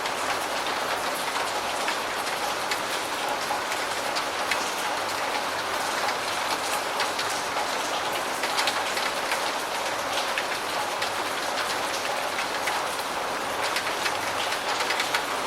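Steady medium rain falling on a surface, an even hiss with scattered sharp drop ticks.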